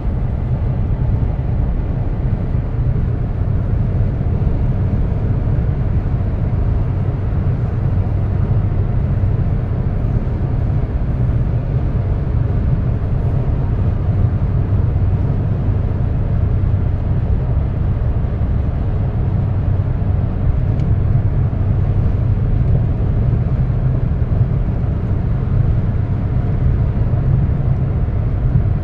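Steady road noise inside a car cabin at highway speed: a low rumble from the tyres and engine with a constant low hum underneath.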